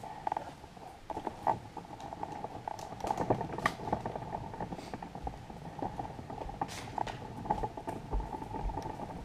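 Stroller rolling across a hardwood floor: its wheels and frame rattle and click steadily, with a few low thumps.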